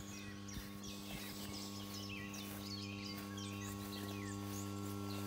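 Electric pond pump humming steadily, slowly getting louder, with many short bird calls over it.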